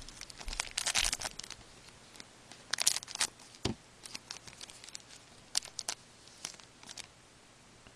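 Foil wrapper of a 2011-12 Panini Certified hockey card pack crinkling and tearing as it is opened, and cards sliding against each other, in several short scratchy bursts. A soft knock comes about halfway through.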